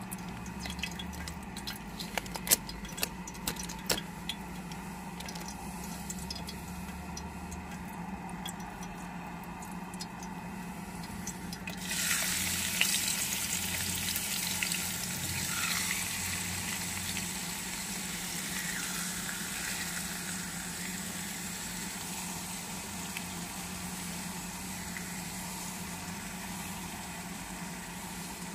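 Clicks and crackles of a plastic meat tray being cut open and handled. Then, about twelve seconds in, seasoned meat slices start sizzling suddenly as they go into a hot pan on a gas canister stove, and the sizzle carries on steadily.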